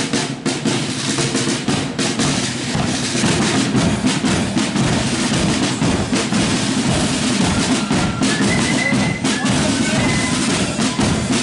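Marching flute band's drum corps playing on the move: massed side drums beating a quick march rhythm with rolls over a bass drum beat. A few short high notes come through about eight seconds in.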